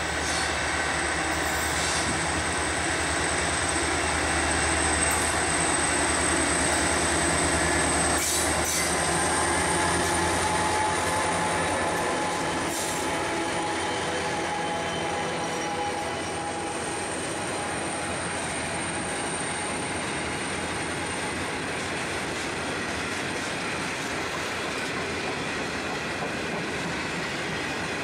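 A diesel-hauled grain train passing. The locomotives' engines are loudest for the first ten seconds or so and then fade, leaving the hopper wagons rolling by with a steady high-pitched wheel squeal and a few wheel clicks.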